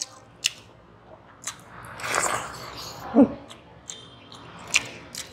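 Close-up mukbang eating sounds: wet mouth clicks and smacks of a man chewing soft khichri eaten by hand, with a soft squish around two seconds in and a brief hum about three seconds in.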